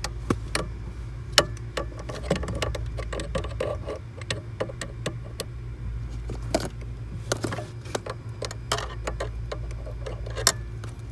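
Flathead screwdrivers clicking and scraping irregularly against the metal C-clip on a clutch pedal's pivot pin as it is pried at, over a steady low hum.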